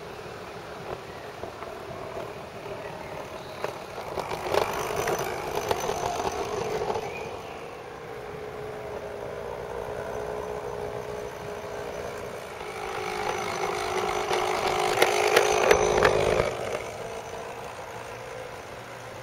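Battery-powered model railbus running along garden railway track: its small electric motor and gears give a steady whine with light clicks of the wheels on the rails. It grows louder twice as it passes close, briefly about four seconds in and more strongly around fifteen seconds in, then drops away suddenly.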